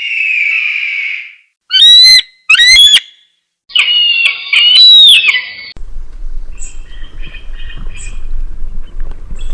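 A string of bird-of-prey screeches from an eagle sound-effect compilation: a harsh drawn-out screech, two short piercing screams, then a run of several calls, cut one after another. About six seconds in, the clip switches to a fainter recording with a low steady hum and scattered faint chirps.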